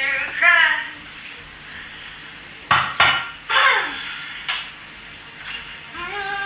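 A metal utensil stirring and clanking against a frying pan over a steady sizzle, with two sharp knocks about three seconds in and a lighter one a little later.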